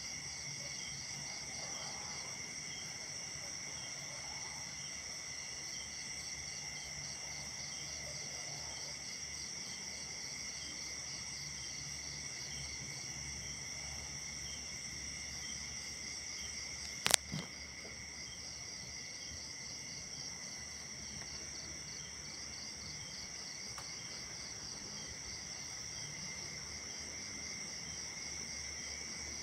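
Night insect chorus of crickets and other insects trilling steadily at several high pitches, some in fast pulses. A single sharp click about two-thirds of the way through, followed by a fainter second one, stands out above the chorus.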